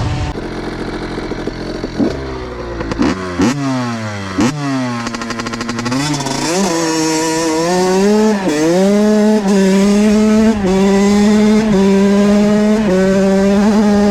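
2007 Honda CR85's 85cc single-cylinder two-stroke engine, with a Pro Circuit R-304 shorty silencer, revving in quick blips, dropping and climbing again, then held at high revs with a short dip about once a second.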